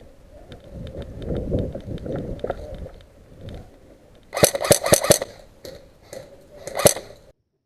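Airsoft gun firing a quick string of about five shots in under a second, then a single shot about two seconds later, over low rumbling movement noise.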